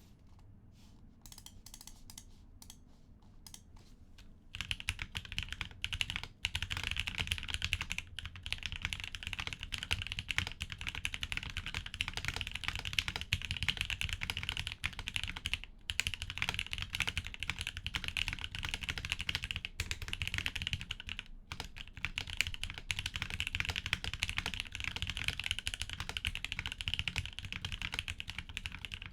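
Typing on a Maker Keyboards Alexa gasket-mount mechanical keyboard with lubed Gateron Milky Yellow Pro KS-3 linear switches on a POM plate, foamless, with Drop DCX keycaps. A few light, scattered keystrokes at first, then steady fast typing from about four and a half seconds in, broken by a few brief pauses.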